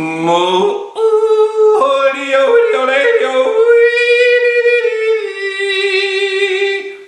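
A man yodeling unaccompanied: his voice slides up, flips back and forth between low chest notes and higher falsetto notes several times, then holds one long high note that droops a little before ending near the end.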